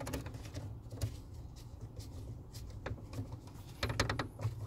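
A torque screwdriver being worked on terminal screws with gloved hands: scattered small clicks and rustling, over a low steady hum.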